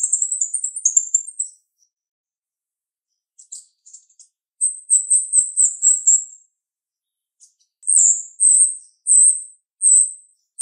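Female jalak rio-rio myna giving sharp, high-pitched calls: a fast chattering run that stops about a second and a half in, a string of rapid notes after a pause, and near the end single notes repeated a little under twice a second.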